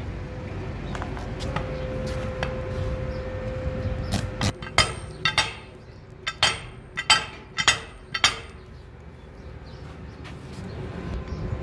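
Metal striking metal: about eight sharp clanks, each with a short ringing tail, bunched between about four and eight and a half seconds in, over a steady low rumble.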